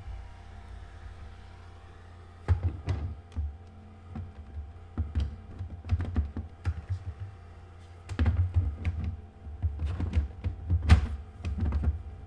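Hard plastic knocks, taps and clunks as the incubator's top is pushed and fitted back onto its base, coming in irregular clusters after a quiet start, over a faint steady hum.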